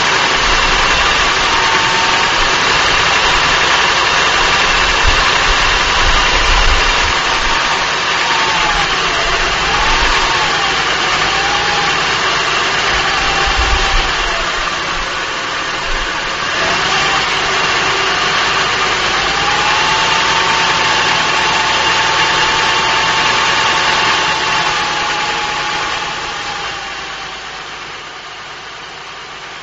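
2005 Acura TL's 3.2-litre V6 idling, heard from under the front wheel well, with a knock from the engine that the dealer and Acura put down to normal valve-train noise. A tone in the running sound wavers up and down for a while, and the engine gets quieter near the end.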